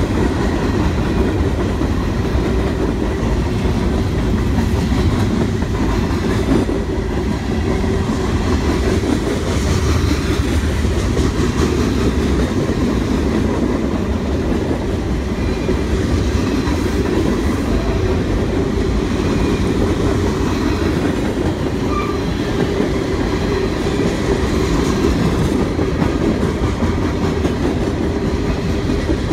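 Freight cars of a mixed train rolling past on the rails: a steady, heavy rumble that keeps an even level throughout.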